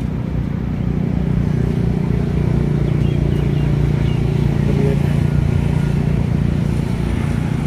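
Steady low rumble of a motor vehicle's engine, swelling toward the middle and easing off slightly near the end.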